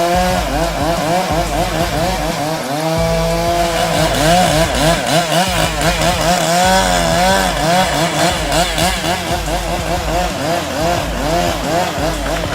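Chainsaw running hard while cutting into a tree, its engine note wavering rapidly up and down as the chain bites and recovers in the wood.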